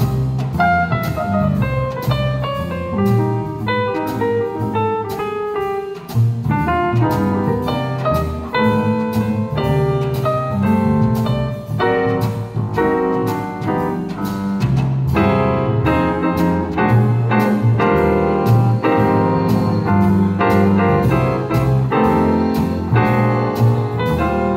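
Jazz piano trio playing live: a Yamaha grand piano, a plucked upright double bass and a drum kit, with the piano carrying the lead.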